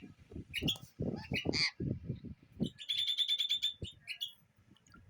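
Sun conures chirping: short high-pitched calls in clusters, with a quick run of about nine rapid chirps around the middle.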